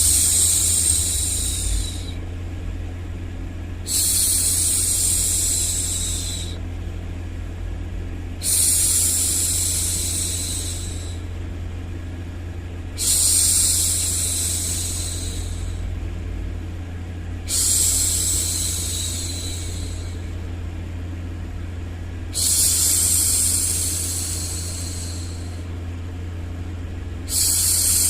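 A woman's voice making long 'shhh' hushing sounds, one every four to five seconds, each lasting two to three seconds, over a steady low rumbling noise.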